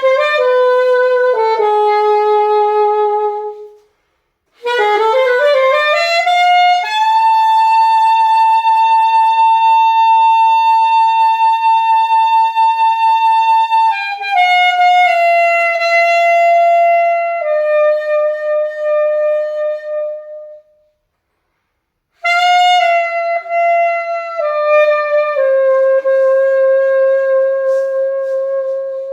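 Alto saxophone played solo and unaccompanied in slow phrases, one note at a time, with two short breaks. A rising slide leads into a long held high note, and the phrases step down to long held lower notes.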